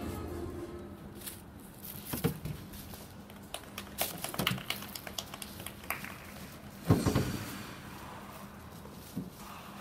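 Sparse, scattered handclaps and knocks in an ice rink, with a louder thump about seven seconds in.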